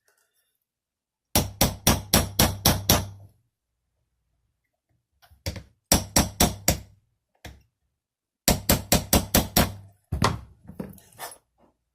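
A small hammer tapping a roll pin punch, driving the ejector roll pin into an AR-15 bolt. The taps come in three quick runs of about six or seven strikes each, with a few lighter taps near the end.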